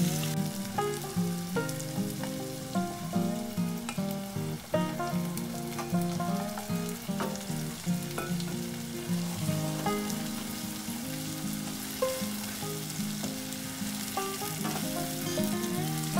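Onions and leek greens sizzling in oil in a saucepan, stirred with a wooden spatula that clicks and scrapes against the pan, with sea bream bones added partway and stirred in: the aromatics and fish bones sweating for a fish stock (fumet de poisson).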